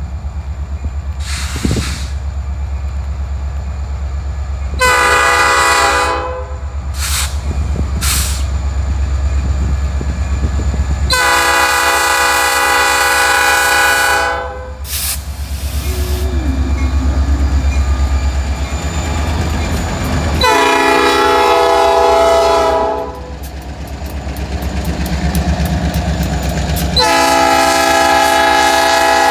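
Freight-train diesel locomotives' multi-chime air horn blowing for a grade crossing: four blasts, the first shorter and the later three long. Under them runs the steady low rumble of the diesel engines as the locomotives pass, with wheel clatter as the cars follow.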